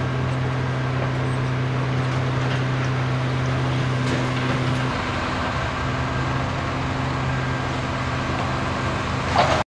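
An engine running at a steady idle, a low even hum, over a steady wash of outdoor traffic-like noise, with a brief bump near the end.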